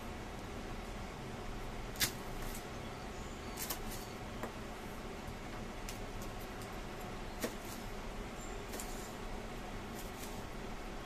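Chef's knife slicing long chilies lengthwise on a plastic cutting board: scattered, irregular clicks and taps of the blade against the board, the sharpest about two seconds in, over a steady low hum.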